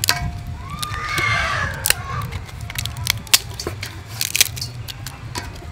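Dried tofu-skin sticks being snapped and torn by hand, crackling in sharp cracks, mixed with a knife cutting beef on a wooden chopping board. Over a steady low rumble, with a short pitched call in the background about a second in.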